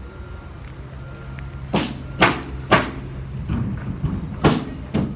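Nails being driven into wood framing: five sharp strikes in two quick groups. A low steady hum runs underneath and stops near the middle.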